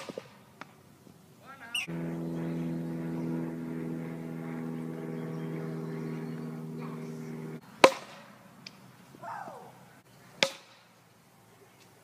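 A sharp crack as a plastic wiffle ball bat hits the ball, then a steady droning hum for several seconds, then two more sharp knocks, the loudest about eight seconds in, with a brief shout between them.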